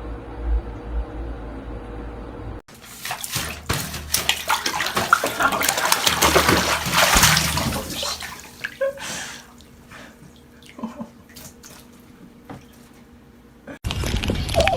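Water splashing loudly with clicks and knocks mixed in, from about three seconds in until about nine seconds, then a quieter stretch of scattered taps. Near the end a cat meows.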